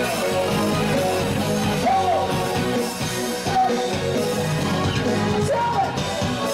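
A live band playing amplified through PA speakers, with a male singer's voice over the music from a handheld microphone.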